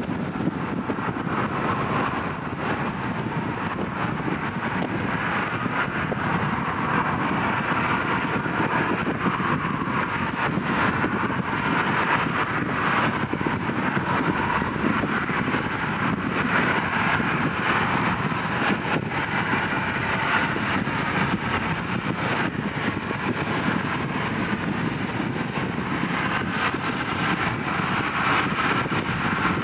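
Jet engines of a Boeing 737 airliner running at taxi power: a steady whine and rush that holds even throughout.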